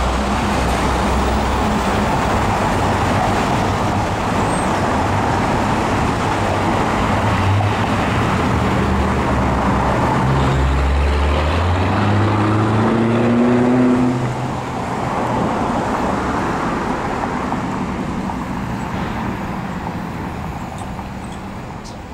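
Road traffic at a signalled intersection: cars and SUVs driving past close by. One vehicle's engine rises in pitch about twelve to fourteen seconds in, the loudest moment, and the traffic noise eases off over the last few seconds.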